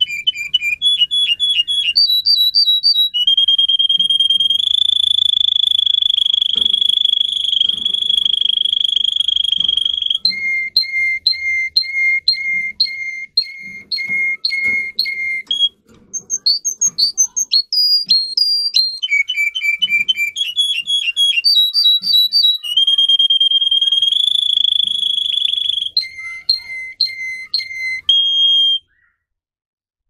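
Domestic canary singing. Fast runs of repeated notes step up in pitch into a long, steady, high whistle-like roll, then give way to a run of lower repeated notes. The sequence is sung twice, and the song stops abruptly near the end.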